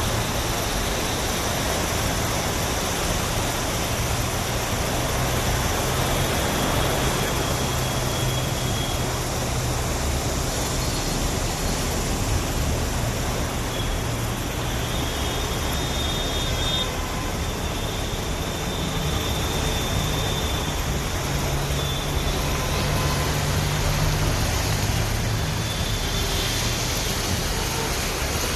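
Heavy rain pouring steadily, with road vehicles running their engines through it.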